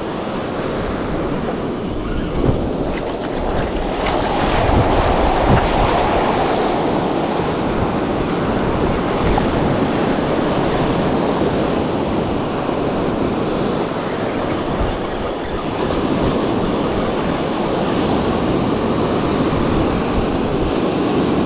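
Surf breaking and washing up the beach, with wind buffeting the microphone: a steady rushing noise with an uneven, gusting rumble underneath.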